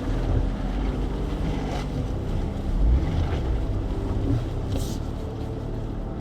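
Willys Jeep engine running steadily at low revs as it crawls up a rocky trail, with a brief hiss about five seconds in.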